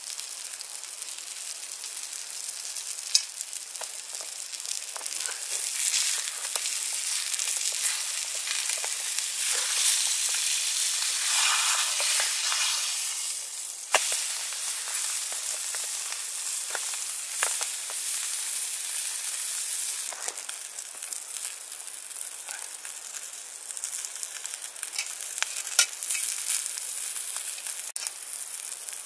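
A salmon fillet sizzling steadily in a hot frying pan, with scattered pops and sharp clicks as the spatula works the fish in the pan.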